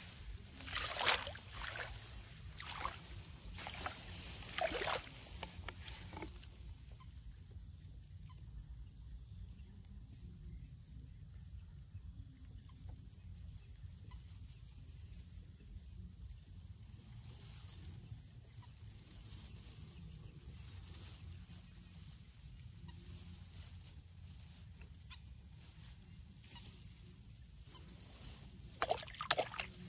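Rice plants rustling and brushing in several short bouts as a bamboo hook pole is set among them. This happens over the first five seconds and again near the end. In between there is only a steady high-pitched tone and a low rumble.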